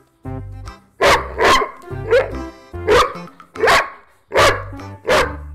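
A large dog barking, about seven loud barks in a steady series, roughly one every 0.7 seconds, with light background music underneath.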